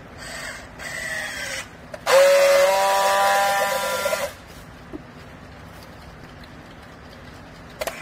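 Battery-powered handheld strapping tool tensioning and sealing a plastic strap around a baled stack of clothes: two short motor whirs, the second falling in pitch as the strap tightens, then a louder steady whine of about two seconds as it welds the joint.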